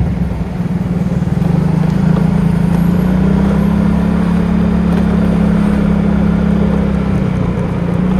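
Yamaha motorbike's engine running steadily while riding along a street, a continuous low drone with road noise, rising a little in pitch about two seconds in.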